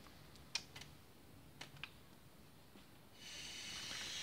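A few faint clicks from handling the car cassette stereo, then about three seconds in a steady hiss comes up as the unit starts playing back.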